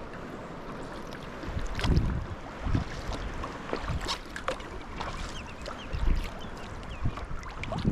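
Sea kayak paddling: the paddle blades dip and splash into the sea every second or two, water drips off the blades, and wind rushes on the microphone throughout.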